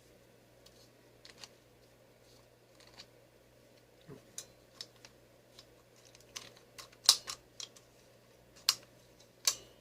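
Sharp plastic clicks and taps from handling a 1980 Remco Monsters Wolf Man action figure as its hug button on the back is pressed and its arms are worked. The clicks are sparse at first and come thicker and louder in the second half, the sharpest about seven seconds in.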